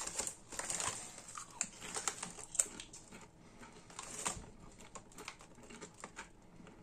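Foil crisp bag crinkling and crisps crackling as a hand reaches into the packet, in short sharp scattered crackles that thin out after the first two or three seconds.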